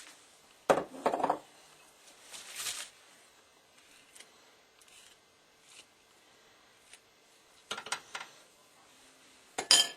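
A spoon knocking and scraping against dishes as cake mix is spooned into a pan. There are a few sharp clinks about a second in, a short scrape near three seconds, and more clinks near the end.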